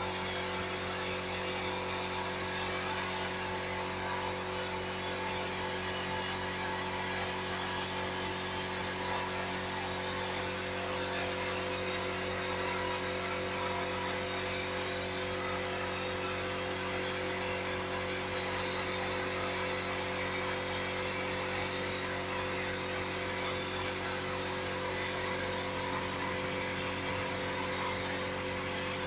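Steady machine hum: a motor or fan running without change, several steady tones over a whirring background.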